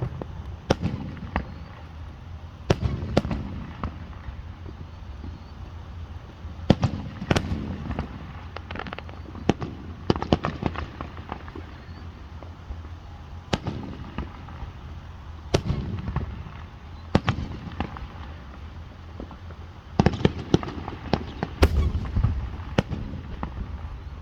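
Fireworks going off: sharp bangs and cracks at irregular intervals, some followed by a low rumbling boom, with quicker runs of reports about ten seconds in and again near the end.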